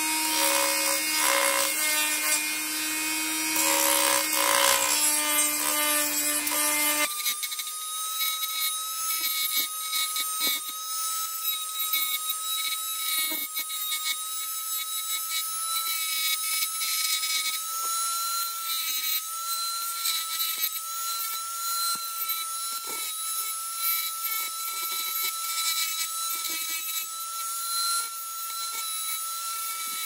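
A budget hand-held rotary tool, a Dremel copy, running with a small sanding drum and grinding the edges of a hard-plastic vacuum motor fan's vanes: a steady motor whine over a scratchy rasp. The whine's pitch jumps higher about seven seconds in and then holds, wavering slightly as the drum bears on the plastic.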